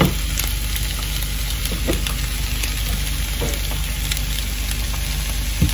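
Eggs and rice frying in oil in a frying pan: a steady sizzle, with a few faint knocks.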